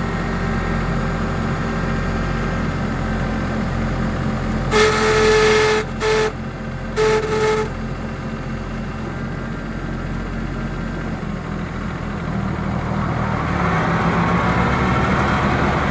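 New Holland TC18 compact tractor's three-cylinder diesel running at idle while a horn toots three times about five seconds in, one longer toot then two short ones. Near the end the engine speeds up and gets louder.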